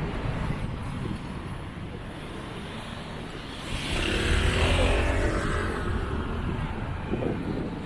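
A vehicle passes by, swelling to its loudest about four seconds in and then fading, over a steady low background rumble.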